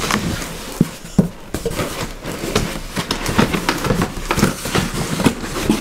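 Cardboard shipping box being handled and its flaps pulled open: an irregular run of scraping, rustling and small knocks of cardboard.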